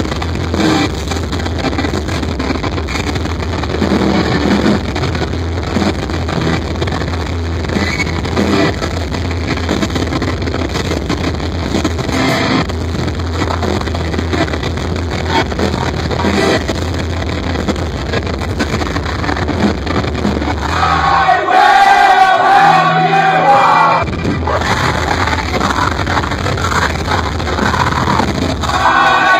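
Live band playing loud with electric guitar, bass and drums, the singer singing into a handheld microphone, in a muddy, distorted recording. About 21 s in, the bass drops out for roughly three seconds and the singer's voice comes to the fore before the full band comes back in.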